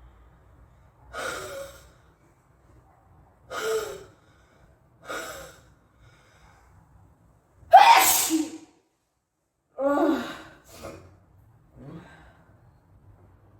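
A person catching their breath in three short gasps as a sneeze builds, then one loud sneeze about eight seconds in, followed by a few shorter breathy sounds.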